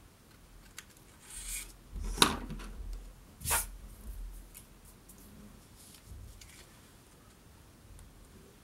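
Small scissors snipping off a ribbon end, then handling noise as the scissors are laid on the wooden tabletop and the paper card is picked up. Two sharp clicks, about two and three and a half seconds in, are the loudest.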